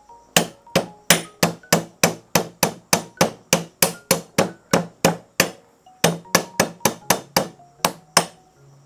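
Cleaver striking lemongrass stalks on a wooden chopping board, sharp blows at about three a second, with a short pause about six seconds in.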